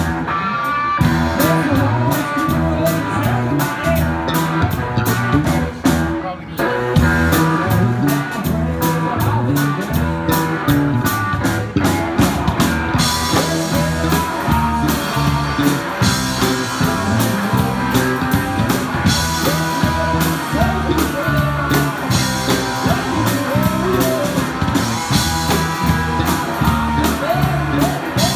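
Live rock band playing: electric guitars over a drum kit. There is a brief drop about six seconds in, and from about thirteen seconds the sound turns brighter and fuller, with more cymbal.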